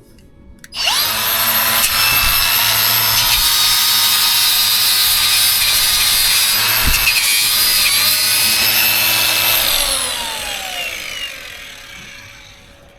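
A handheld electric power tool's motor starts abruptly about a second in and runs with a loud, steady high whine. After about nine seconds it winds down, its pitch falling as it coasts to a stop.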